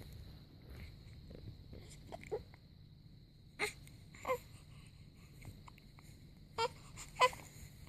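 A newborn baby making short, sharp squeaks: four brief sounds in two pairs, each pair about half a second apart, with a few fainter ones before them, over a low steady hum.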